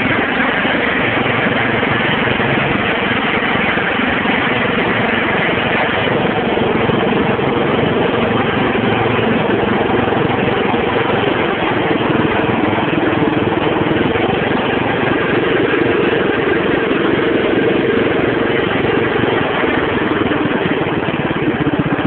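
Tractor engine running steadily as the tractor is driven along.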